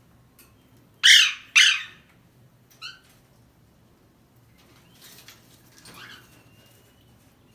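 Parrot giving two loud, harsh squawks about a second in, half a second apart, then a short call near three seconds, with fainter chirps and a thin whistle later.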